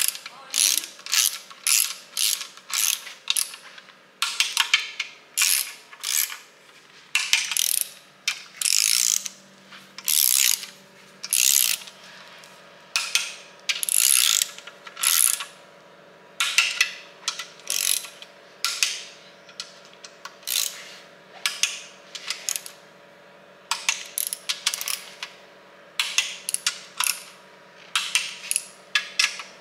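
Hand socket ratchet wrench clicking in quick back-and-forth strokes as bolts are run down into an aluminium engine block. The strokes come about two a second in runs, with short pauses between runs as the wrench moves to the next bolt.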